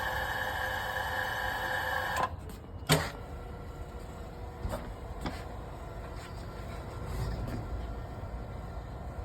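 Matsumoto Kikai PS-4F-1 welding positioner's electric drive running with a steady whine, then stopping abruptly a little over two seconds in, followed by a single sharp clunk and a few faint clicks.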